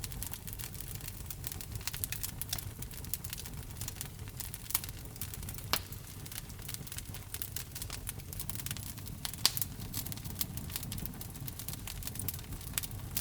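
Wood fire burning in a fireplace: a steady low rumble of flame under dense crackling, with a few louder sharp pops.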